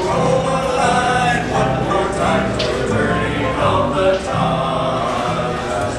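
Music with a choir singing held notes.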